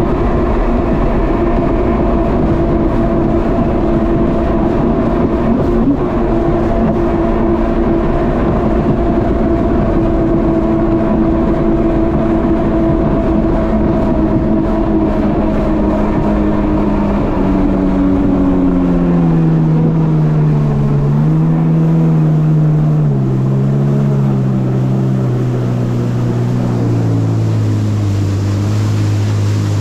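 Kawasaki jet ski's engine running steadily at cruising speed over a rushing noise. From about two-thirds of the way in, the engine note drops in pitch in several steps to a low, steady hum as the throttle eases off and the craft slows, and the rushing fades.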